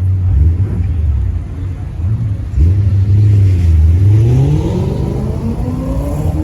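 A car engine runs with a low, steady rumble, then its engine speed climbs over the last two seconds or so, the pitch rising smoothly.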